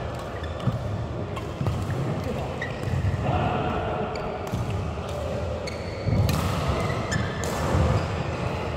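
Badminton play in a reverberant sports hall: sneakers squeaking on the court mat, repeated low thuds of footsteps, and a few sharp racket-on-shuttlecock clicks, over background chatter.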